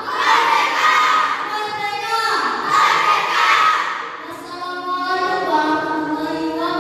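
A choir of primary-school children singing together, their voices holding notes in unison.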